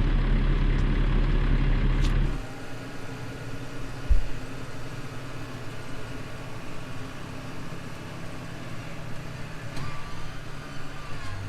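A vehicle engine running steadily. About two seconds in, the sound drops suddenly to a quieter, steady engine hum, with a single thump about four seconds in.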